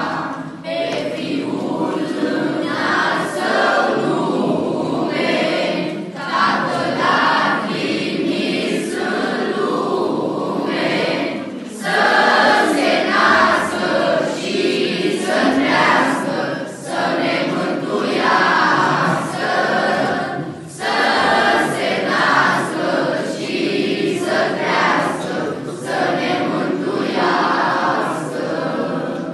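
Children's school choir singing a Christmas carol together, in sung phrases with short breaks between them.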